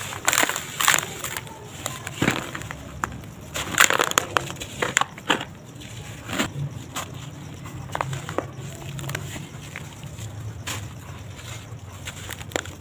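Hands squeezing and crumbling dry sand-cement mix: irregular crisp crunches and crackles of breaking clumps and falling grit, heaviest in the first half and lighter after that.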